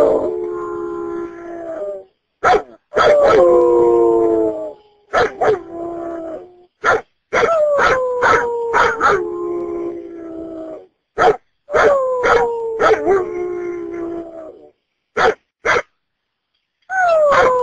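A dog howling: about five long calls, each starting high, sliding down and then holding, cut off abruptly between calls, with a few short sharp clicks in the gaps.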